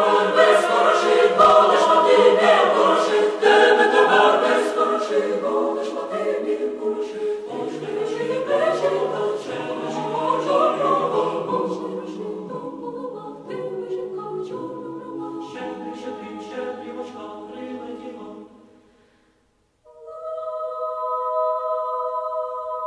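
A choir singing a hymn, many voices with changing melodic lines, fading out near the end. After a moment of silence, a steady chord of held notes begins.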